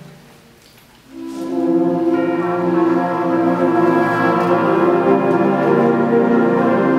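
Concert band music: a held chord dies away to a brief hush, then about a second in the full band comes back in with sustained brass and woodwind chords that swell and hold loud.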